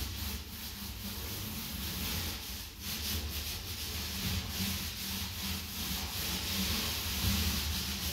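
Paint roller on an extension pole being rolled up and down a wall, a steady hissing noise that dips briefly about three seconds in as the stroke turns.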